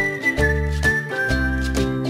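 Upbeat background music: a whistled melody of long held notes over regularly strummed or plucked chords and a bass line.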